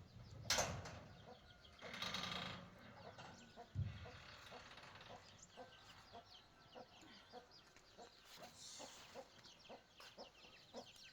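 Chickens clucking, with many short high chirps running through. There is a loud brief noise about half a second in and a rustling noise around two seconds in.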